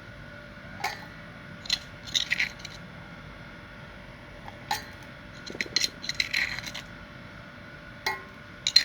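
Irregular clinks and short scrapes of a utensil against a mortar as pounded herbal paste is scooped out, with a busier cluster about six seconds in and a sharp clink near the end.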